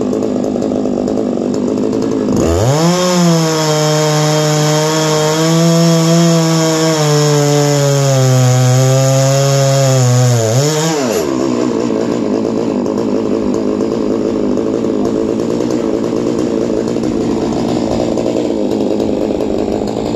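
Chainsaw on a chainsaw mill revved to full throttle about two and a half seconds in and held there for roughly eight seconds while cutting along a white oak log, its pitch sagging a little under load, then dropped back to a rough, lower idle.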